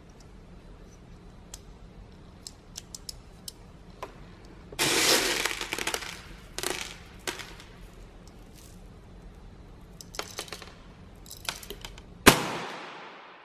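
Clicking and handling of an airsoft pistol's CO2 cartridge fitting. About five seconds in comes a loud burst of gas hiss lasting about a second as the cartridge is tightened down and pierced. A single sharp crack near the end is the loudest sound and fades away slowly.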